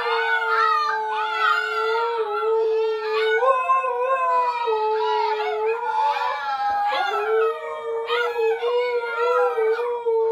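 A Siberian husky mother and her puppies howling together. One lower voice holds a long, steady howl, dipping briefly about two-thirds of the way through, while the puppies add higher, wavering howls that rise and fall over it.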